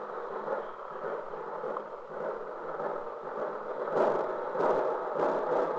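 Street hubbub of a marching brass band procession, a steady noisy rustle of the marchers and crowd, with evenly spaced drum beats about every half second in the second half.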